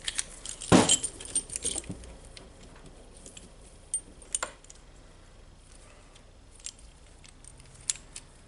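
Small metal tools and parts clinking and knocking as a cheap bearing puller is worked on a stuck ball bearing: a loud sharp clank just under a second in, a quick run of clicks after it, then scattered lighter ticks.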